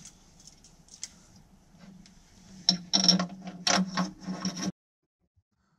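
Bolts being fitted and run in on a driveline alignment plate on a jet ski's pump bulkhead. Faint metallic ticks come first, then about two seconds of louder, irregular ratchet-like clicking that cuts off abruptly.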